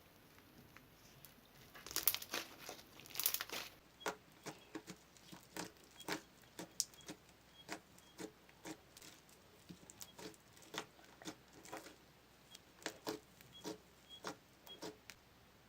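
Hands squeezing and kneading a crunchy slime mixed with small foam beads, giving a string of crackling snaps: a dense cluster about two seconds in, then scattered snaps about twice a second.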